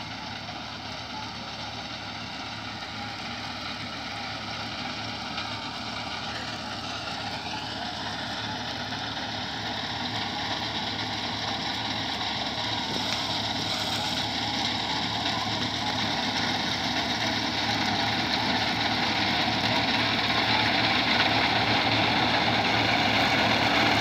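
Tractor engine running as it drives a reaper cutting standing wheat, steady in tone and growing steadily louder as it comes closer.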